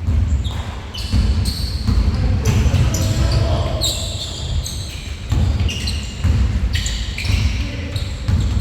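Basketballs bouncing on a gym floor during a game, repeated thuds echoing in a large hall, with sneakers squeaking in short high bursts.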